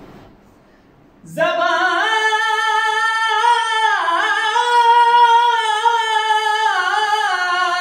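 Unaccompanied young man's voice singing an Urdu naat (Islamic devotional song) in a high register. After a brief pause he comes in about a second and a half in with one long, held melodic phrase that dips and turns in an ornament midway.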